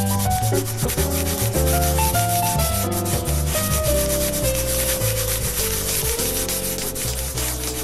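Intro jingle with a moving melody and bass, over a rapid scratchy scribbling sound effect that goes with the logo being drawn.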